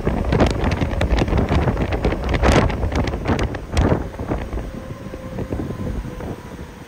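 Strong gusty wind buffeting the microphone near a tornado, with rumbling and frequent sharp pops that ease off after about four seconds.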